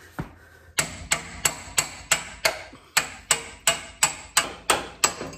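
Hammer blows on steel at the steering knuckle, knocking the outer tie rod end loose from the spindle. One strike, then a steady run of about a dozen ringing metal-on-metal hits, roughly three a second.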